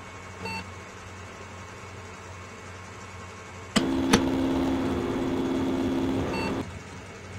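Electronic sound effect: a sharp click, then a steady low electrical buzz for about three seconds that cuts off suddenly, over a faint constant hum. A short faint blip sounds about half a second in.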